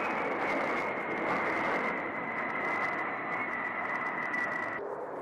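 Jet engines of aircraft flying overhead: a steady rush with a high whine that slowly drops in pitch. The sound changes abruptly shortly before the end, where the whine stops.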